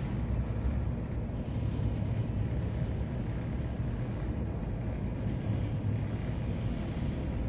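Steady low rumble of a ship's engine heard inside the wheelhouse.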